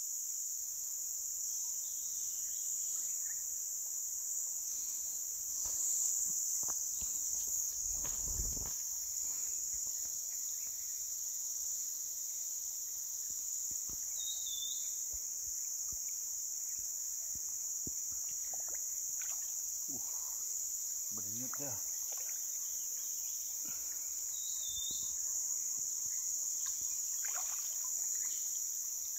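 Steady, high-pitched chorus of insects, unbroken throughout. A low, dull thump comes about eight seconds in.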